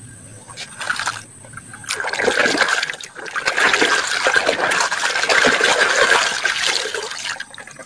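Water splashing and trickling as a muddy toy is washed by hand. It is faint for the first couple of seconds, then louder and busier, easing off near the end.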